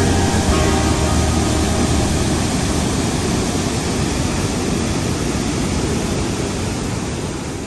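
Steady rush of a large waterfall, the Yellowstone River pouring over the brink of its falls into the canyon, fading out gradually near the end.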